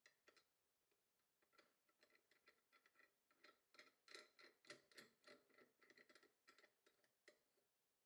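Faint, irregular clicks and ticks from a restored beer hand pump as its wooden handle is worked by hand, coming thicker in the middle and stopping just before the end.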